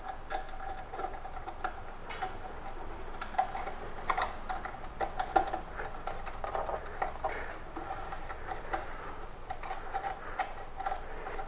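Soft, irregular clicks and rustles of thin wires being handled and fed through a small wire guide on a garage door opener's housing.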